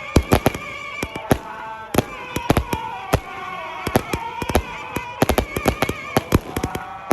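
A 120-shot aerial firework cake firing its shots in rapid, irregular succession, several sharp bangs a second.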